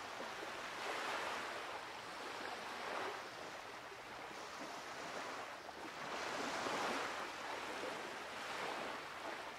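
Ocean surf washing ashore: a soft, hissing rush of waves that swells and eases a few times.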